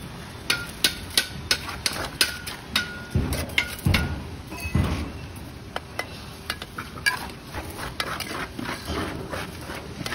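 Steel brick trowel tapping hollow clay bricks down into their mortar bed: a quick series of sharp metallic taps, several ringing briefly.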